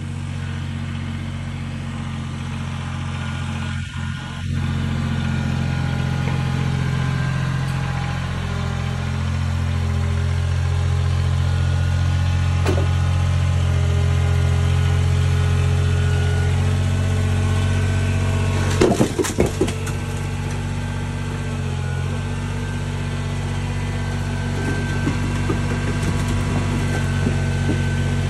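Compact tractor with front loader running steadily at low revs, growing louder as it drives closer. A short rattle of knocks comes about two-thirds of the way through, with a few sharper knocks near the end.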